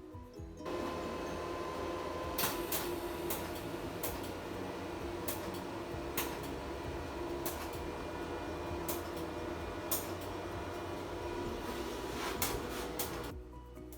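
Steady mechanical whirring noise with a held tone and irregular sharp clicks. It starts about a second in and cuts off shortly before the end.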